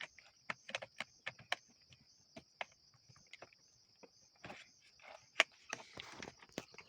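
Irregular clicks and light knocks of an electric drill's housing being worked open by hand. A steady high chirring of insects runs underneath.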